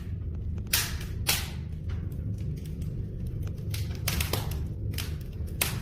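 Oak and pine firewood burning in a brazier, crackling with sharp irregular pops over a steady low rumble; the loudest pops come about a second in and near the end.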